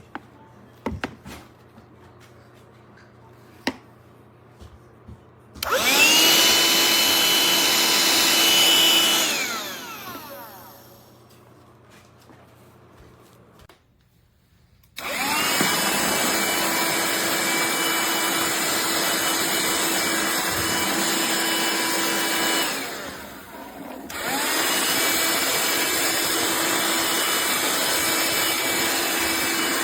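Black+Decker Dustbuster cordless handheld vacuum, a few clicks and knocks first, then the motor spins up to a steady whine, runs a few seconds and winds down with falling pitch. It starts again about halfway through and keeps running, with a brief drop and restart about three-quarters of the way in.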